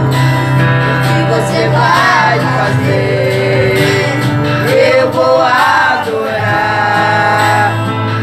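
Two children singing a gospel hymn into microphones over instrumental accompaniment with held bass notes.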